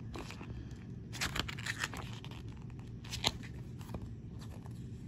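Pages of a small paper instruction booklet being turned and handled: short, crisp paper rustles and flicks, in a cluster about a second in and another about three seconds in.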